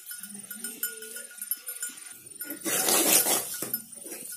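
Metal spatula scraping and stirring melted jaggery in an aluminium kadai, starting a little past halfway and going on in two strokes of scraping, with a faint sizzle.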